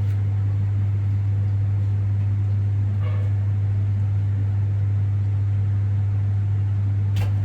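Steady, deep electrical hum on one unchanging tone, with a sharp click near the end.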